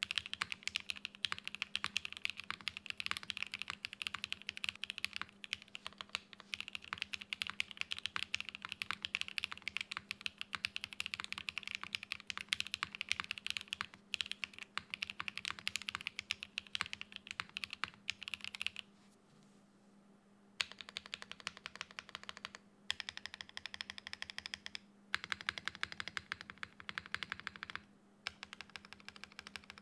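Geon Frog Mini 60% mechanical keyboard with lubed KTT Strawberry switches on an aluminium plate, GMK keycaps and no sound dampening, typed on rapidly. A dense run of keystrokes stops briefly about 19 seconds in, then comes back as several shorter bursts of fast typing.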